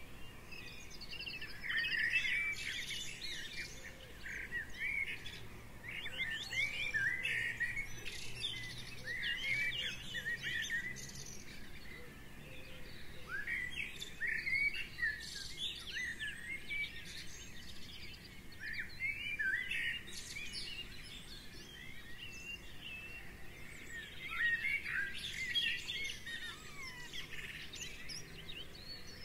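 Small garden birds chirping and singing, with many short, quick calls that come in clusters every few seconds.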